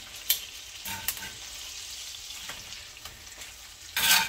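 Ribeye steak sizzling in hot butter and oil in a frying pan, with a steady hiss and a click of metal tongs early on. Near the end there is a loud burst of sizzle as the steak is moved in the fat with the tongs.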